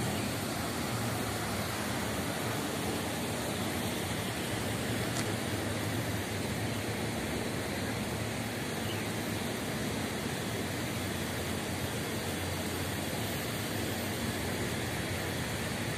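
Steady outdoor ambience: an even rushing noise with a faint low hum underneath and no distinct events.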